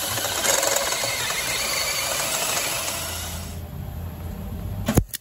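Cordless drill boring a hole through a steel exhaust pipe for a wideband oxygen sensor bung: a steady grinding hiss that stops about three and a half seconds in, leaving a low hum. A sudden loud burst comes in just at the end.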